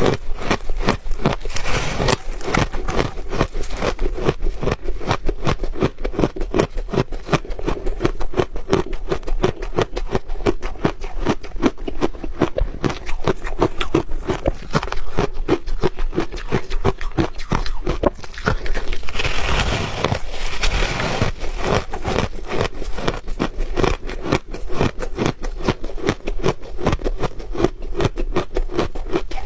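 Crunchy ice being chewed close to the microphone: a continuous run of rapid crunches, with a louder stretch about two-thirds of the way through.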